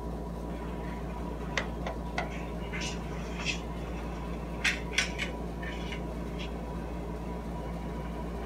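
Scattered small clicks and taps of a phone or tablet being handled, the sharpest about five seconds in, with a few short breathy puffs of stifled laughter over a steady low hum.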